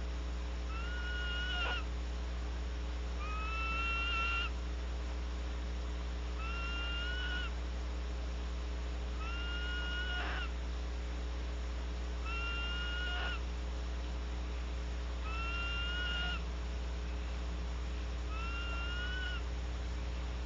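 Barn owl giving a screeching, rasping call over and over, a short slightly rising note about every two and a half to three seconds, with a steady low electrical hum underneath.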